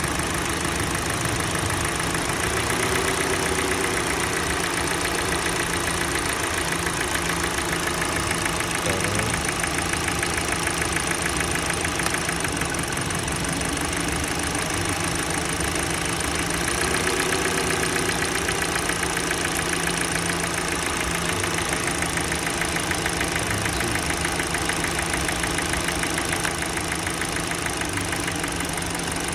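Kia Sportage's G4NA 2.0-litre four-cylinder petrol engine idling warm, with a steady rapid knock running through it. The knock is being traced by disconnecting the ignition coils.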